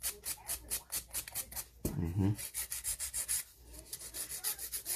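Hand nail file rasping back and forth across a hardened dip-powder fingernail to shape it, about four to five quick strokes a second.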